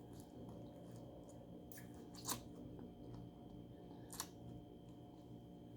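Faint eating sounds from head-on shrimp: soft wet chewing with two short sharp crunches, about two seconds and four seconds in.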